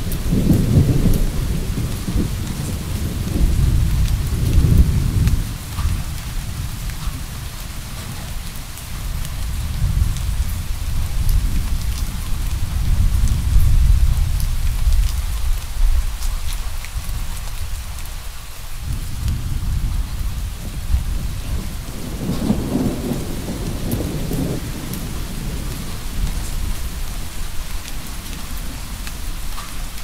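Steady rain falling, with distant thunder rumbling in long low rolls three times: at the start, again through the middle, and once more about three-quarters of the way through.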